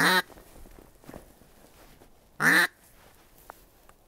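Duck call blown by mouth, giving two loud, drawn-out quacks about two and a half seconds apart.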